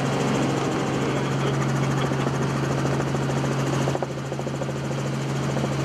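Helicopter engine and rotor noise heard from inside the cabin: a steady, loud drone with a strong low hum, changing slightly about four seconds in.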